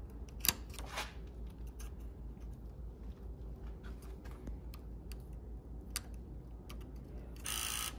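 Small plastic clicks as a wire connector is handled and pushed onto the circuit board of a Salto electronic door lock, then a short electronic beep near the end as the lock powers up, the sign that it is getting power.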